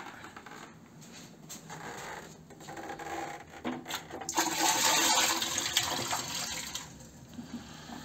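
Dirty water poured from a water-filter vacuum's plastic tank into a toilet bowl, splashing for about three seconds starting around four seconds in. Before that, faint handling noise as the tank is carried.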